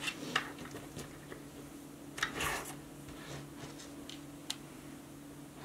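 Hands handling a half-finished paracord dog collar: soft rustles and scrapes of nylon cord with a few light clicks, the loudest rustle a little past two seconds in, over a faint steady low hum.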